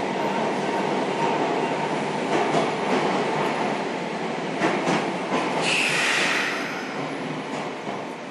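Sotetsu 7000 series electric train running slowly as it brakes, wheels clacking over rail joints a few times. About six seconds in comes a short hiss of air, the series' characteristic brake exhaust as the train comes to a stop.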